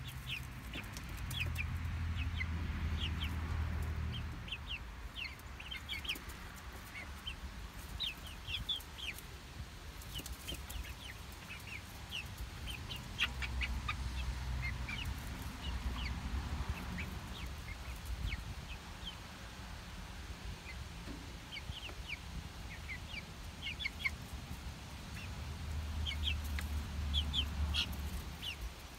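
Young chickens peeping and clucking, with many short, high chirps scattered throughout. A low rumble swells and fades three times underneath.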